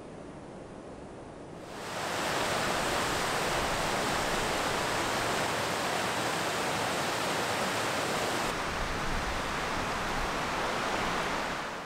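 Steady rush of a mountain creek cascading over rocks. It comes in loudly about two seconds in, after a quieter outdoor hiss.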